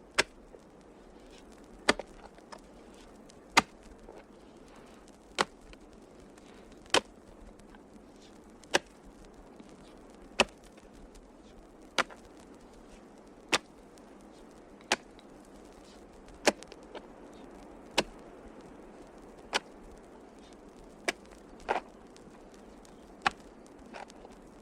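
Sharp single clicks or knocks, one roughly every second and a half, slightly uneven in spacing, over a faint steady hiss.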